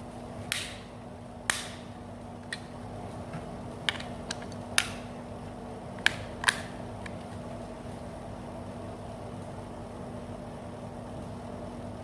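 Sharp plastic clicks from a satellite receiver remote control being handled, about nine of them spread over the first seven seconds, over a steady low electrical hum.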